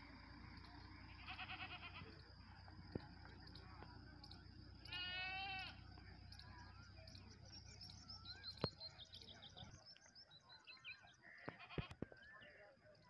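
A farm animal's short, wavering call about five seconds in, with a fainter call near the start. Under them run a steady high whine and faint chirps.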